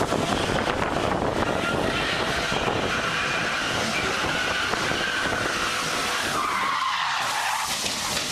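Car engine running hard while its tyres squeal in a skid. The squeal is a steady high tone that drops in pitch about seven seconds in.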